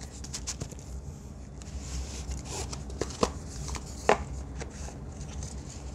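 Cardboard album packaging and plastic shrink wrap being handled: rustling and sliding as a paper photobook is drawn out of its case, with a few light knocks, the sharpest about three and four seconds in.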